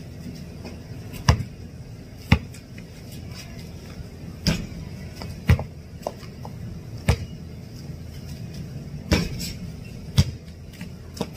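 A basketball thudding as it is bounced and shot, about seven sharp single impacts at uneven gaps.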